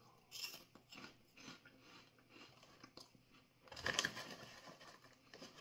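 Crunchy cheese puff balls being bitten and chewed, with several short crisp crunches in the first second and a half. About four seconds in comes a louder rustle of the plastic snack bag as a hand reaches in for more.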